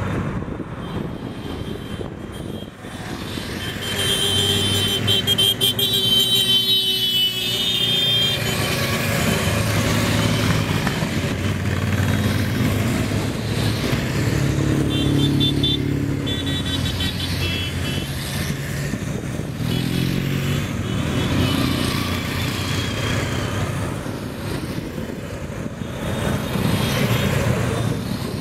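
Motor vehicles of a convoy driving past, engines running steadily.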